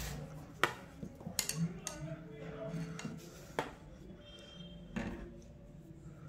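Badminton racket being handled on a stone floor: a handful of sharp knocks and clicks, spaced irregularly, as the racket touches the floor and is picked up.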